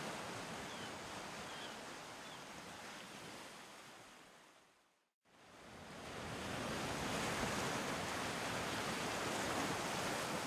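A steady rushing of waves, fading out about five seconds in and fading back in.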